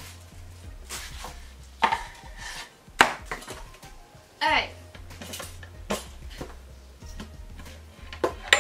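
A yellow Dash long-slot toaster being handled and set down on a table: a handful of separate sharp knocks and clatters from its plastic and metal body, spread across a few seconds.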